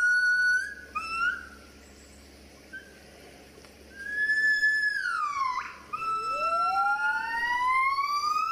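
Gibbon calling in clear whistle-like hoots. Short notes come first, then a pause, and about four seconds in a long note that slides down in pitch. Near the end a long whoop rises steadily in pitch.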